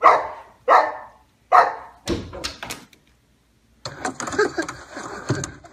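A boxer dog barks three times, about one bark every three-quarters of a second, followed by a quick run of sharp clicks and knocks. Near the end a steady, noisy rustle takes over.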